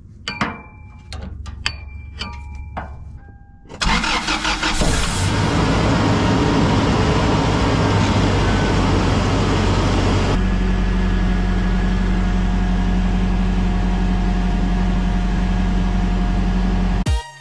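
A few light clicks, then a 2000 Toyota 4Runner's four-cylinder engine cranks briefly about four seconds in, catches and runs steadily. About ten seconds in, its running note changes and settles into an even hum.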